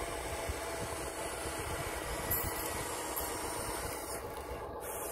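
Radio-controlled scale excavator running with a steady, engine-like mechanical hum as it swings its boom up out of the pit.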